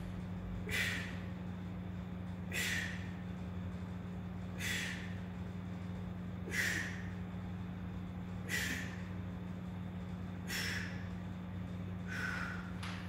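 A man breathing out hard in short, forceful breaths, one about every two seconds and seven in all, one with each repetition of dumbbell side bends. A steady low hum runs underneath.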